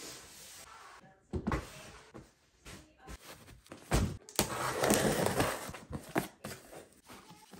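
Household items being handled and set down: a few sharp knocks and thumps, two close together about four seconds in, followed by a couple of seconds of rustling.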